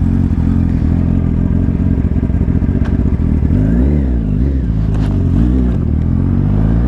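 Yamaha sport bike's engine running steadily at low revs, then pulling away: the revs rise and drop twice as it shifts up, and climb again near the end.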